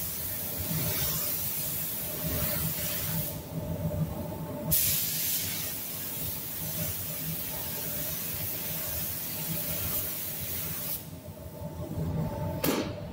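Spray gun hissing as it atomises blending clear onto a car panel, in triggered passes: it stops for about a second and a half near four seconds in, runs again for several seconds, stops, then gives a short burst near the end. A steady hum runs underneath.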